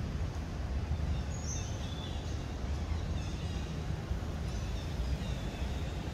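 Steady low outdoor rumble, with faint short high-pitched chirping calls repeating from about a second in.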